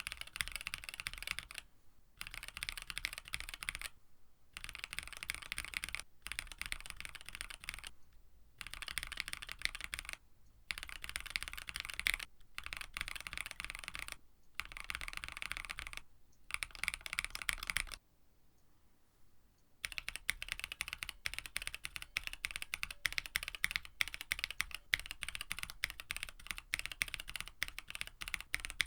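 Fast typing on a KBD67 Lite mechanical keyboard with an FR4 plate, Black Cherry Pie frankenswitches (Cherry MX tops, NovelKeys Cream stems, JWK bottoms) lubed with Krytox 205g0, and GMK Striker clone keycaps. Runs of a second or two of keystrokes alternate with brief pauses, then there is a longer pause about eighteen seconds in, after which typing goes on without a break.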